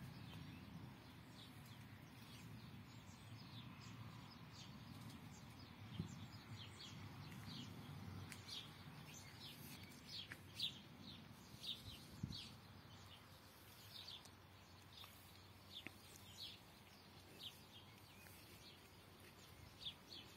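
Faint birds chirping: short, high calls scattered through, thickest in the middle, over a faint low background hum of outdoor noise.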